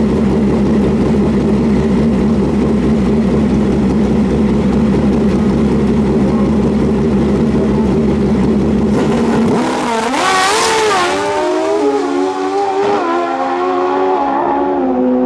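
Two drag-racing motorcycle engines running steadily on the start line, then launching about ten seconds in with a sudden loud blast. The engine note then climbs and drops back in steps through several gear changes as the bikes pull away down the strip.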